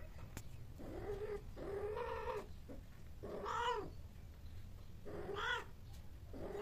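A cat yowling during mating: four long drawn-out calls, each rising and then falling in pitch, with short pauses between.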